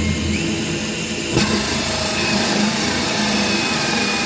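Cordless drill running a hole saw that cuts into the back panel of a sink cabinet, a steady motor whine over grinding, with one sharp knock about a second and a half in.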